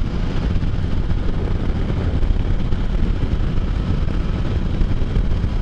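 Can-Am Spyder three-wheeled roadster riding at road speed: steady engine and wind noise.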